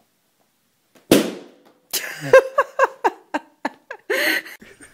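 A balloon bursting with one sharp bang about a second in, then a person laughing in a run of short loud bursts.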